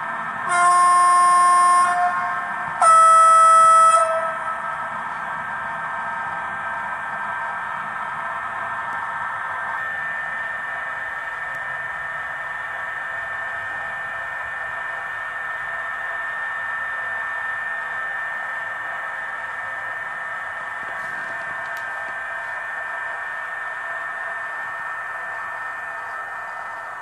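ESU sound decoder in a Liliput H0 Stadler KISS model train, playing two blasts of the electric train's horn through the model's small speaker, the second higher-pitched than the first. A steady electric-train running hum with high whining tones follows, and some of those tones drop out about ten seconds in.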